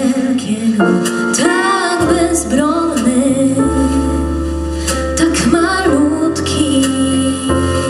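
A woman singing a slow song live into a handheld microphone over instrumental backing.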